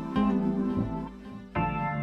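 Background music: plucked-string instrumental with notes struck about a second and a half apart.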